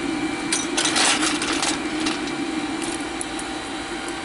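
Small lumps of steam coal clattering off a hand shovel into a model steam locomotive's firebox, a burst of rattling about a second in and a few lighter clicks after. Under it, the steady hum of the electric blower, a 12-volt car heater motor with a fan, drawing the fire.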